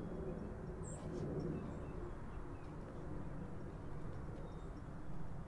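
Quiet outdoor ambience: a steady low rumble, with a single short, high bird chirp about a second in.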